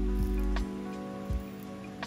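Background music with held chords and a deep bass. Under it are a couple of light clicks and a crackle as a sheet of roasted seaweed is handled with wooden chopsticks over a glass bowl.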